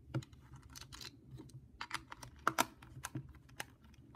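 Plastic case of a Sentry PR799 pocket radio clicking and tapping as it is handled and its back cover is screwed on with a precision screwdriver: irregular small clicks, the loudest about two and a half seconds in.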